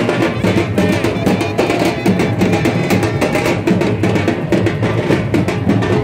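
Loud DJ music over a sound system, driven by a heavy drum beat.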